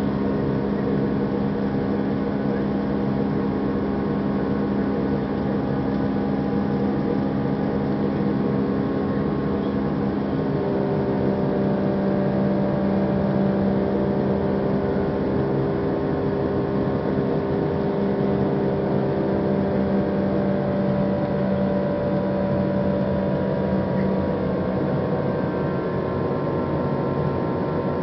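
Jet airliner cabin noise during the climb after takeoff: the steady drone of the engines and airflow, with several steady hums in it. About ten seconds in, one of the hums shifts to a new pitch.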